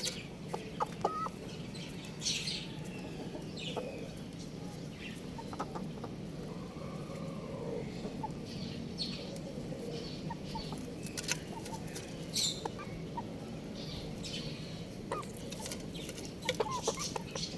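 Chickens clucking and chirping: scattered short, high peeps and calls over a steady low background hum.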